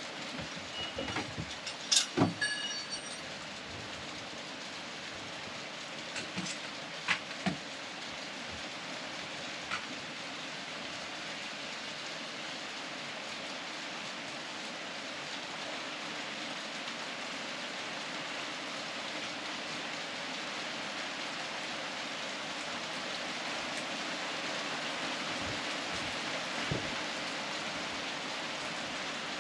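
Steady rain falling, with a ringing metal clank about two seconds in and a few more knocks over the next several seconds as a barbell and gear are loaded into a car.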